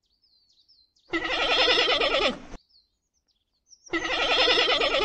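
Dromedary camel calling twice, each a long, wavering, bleating moan of about a second and a half.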